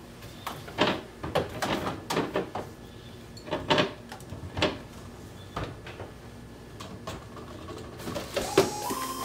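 Kitchen cleaning sounds: a string of separate knocks, clicks and clunks, like cabinet doors and household items being handled and set down. Near the end a short pitched tone comes in.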